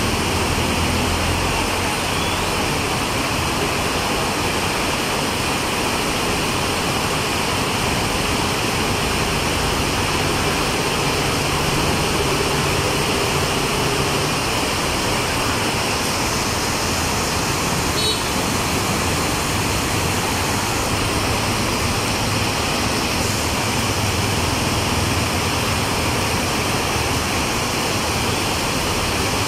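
Heavy rain pouring onto a street, a steady hiss, with motorbikes and cars passing through standing water and low engine hums rising and fading now and then.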